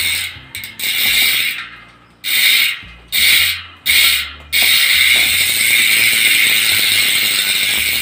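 GUB 1351 rear hub's six-pawl freehub with a 72-tooth ratchet ring, clicking so fast that it merges into a loud, high rattling buzz as the wheel is spun. It stops and restarts sharply about five times in the first half, then runs on steadily from about halfway through.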